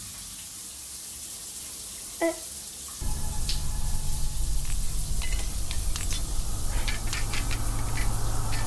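Shower water spraying and dripping onto a tiled floor, with a brief pitched sound about two seconds in. About three seconds in, a low steady drone comes in under the water, with scattered clicks over it.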